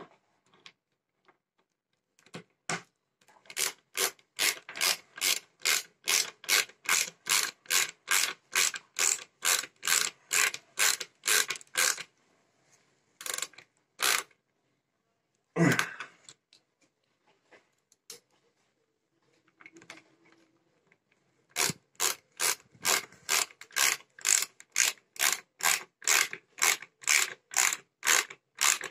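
Ratcheting screwdriver driving screws into a wooden flat-pack table: runs of even clicks, about two or three a second, with a pause in the middle and one heavier knock about halfway through.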